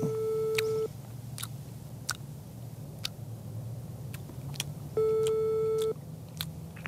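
Telephone ringing tone heard through the receiver: a steady beep about a second long at the start and another about five seconds later, meaning the call is ringing at the other end and has not yet been answered. A few faint clicks come in between.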